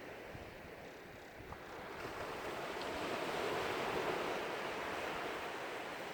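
Small waves washing onto a sandy beach, the wash swelling about two seconds in and slowly easing.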